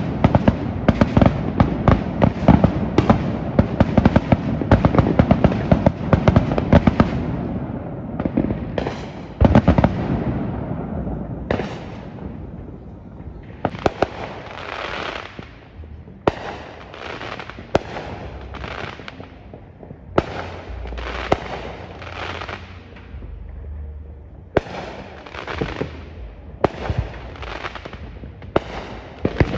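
Neighbourhood fireworks going off: a rapid, dense string of bangs for the first seven seconds or so, then separate crackling bursts every second or two.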